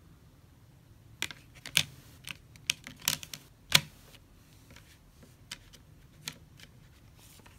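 Plastic Blu-ray case and disc being handled: a run of sharp plastic clicks and taps, thickest in the first half, the loudest just under four seconds in.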